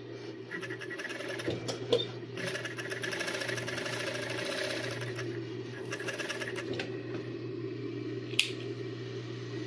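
Industrial sewing machine with a tape-binder attachment sewing binding tape onto swimsuit fabric: a steady motor hum throughout, with fast stitching runs about two and a half seconds in and again around six seconds, and a sharp click near the end.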